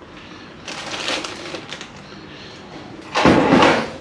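Loose bolts and small metal hardware rattling and clinking as someone rummages through them looking for a bolt, with a louder scraping rustle about three seconds in.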